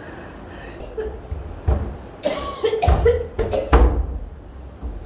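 A woman coughing, a run of harsh coughs starting about a second and a half in.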